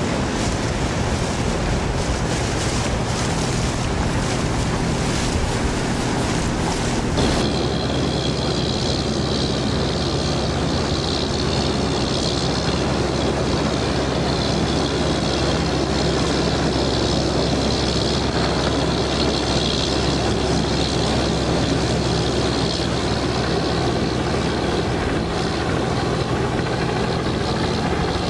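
Steady engine drone of a boat under way, with water rushing past and wind buffeting the microphone. About seven seconds in, the sound changes abruptly to a steadier, deeper engine hum.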